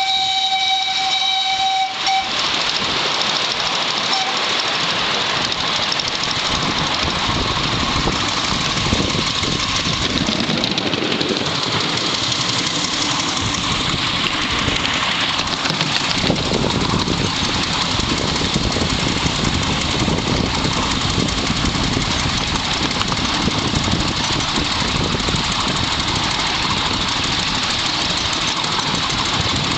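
Ride-on miniature railway train running along its track, with a steady rumbling and clatter of the locomotive and the wheels on the rails. It opens with a steady whistle blast lasting about two seconds.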